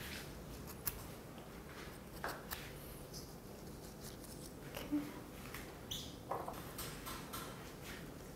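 Faint rustling of leaves and stems with a few light clicks and taps, as flower stems are handled and pushed into a centerpiece arrangement. The sounds come one at a time, sparsely spaced.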